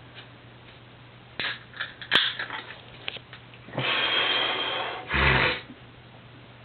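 Aluminium Coors Light beer can being cracked open: a few small clicks and a sharp snap of the pull-tab about two seconds in. A rush of foaming hiss follows, and a louder, lower burst of noise comes near the end.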